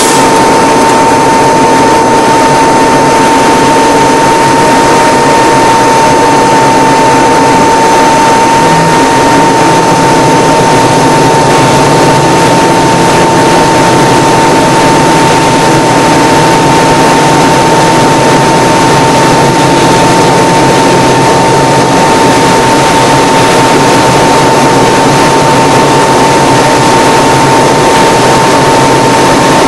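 Piston engine and propeller of a light single-engine aircraft running steadily, heard loud from inside the cockpit, with a steady high whine running over the engine noise.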